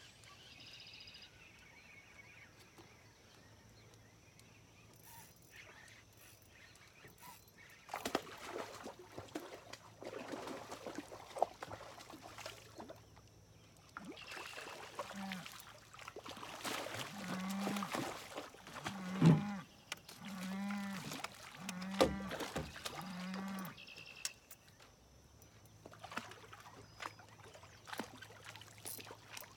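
A series of about six short, low croaks roughly a second apart, typical of an American bullfrog calling. They come over a stretch of rustling and splashing noise as a hooked catfish is reeled in.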